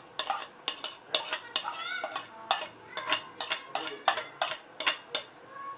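A spoon clinking and scraping against bowls as ingredients are spooned into a mixing bowl: a quick, uneven run of sharp clicks, about three a second.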